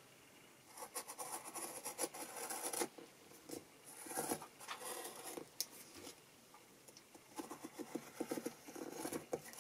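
Olfa compass cutter blade scratching a circle into a thin white sheet as it is swung round its centre point. The quiet, scratchy scraping comes in three passes with short pauses between them.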